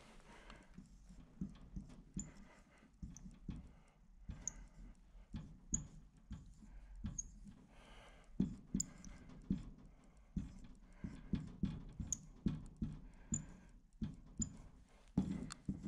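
Footsteps on a floor: a series of soft thuds at a walking pace, steadier in the second half, with a few faint high chirps.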